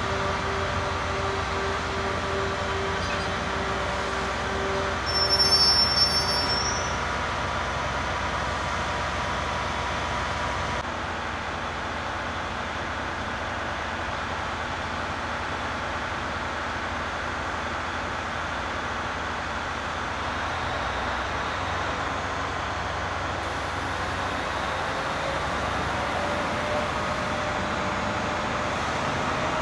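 Speno RR16-M14 rail grinding train running steadily while standing, with a brief high-pitched squeal about five seconds in.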